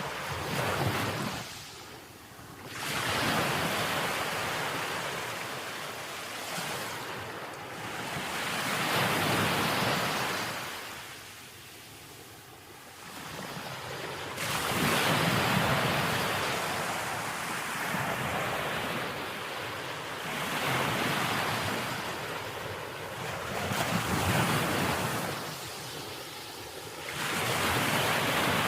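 Ocean surf breaking on a beach: waves crash and wash back, each swelling and fading over a few seconds.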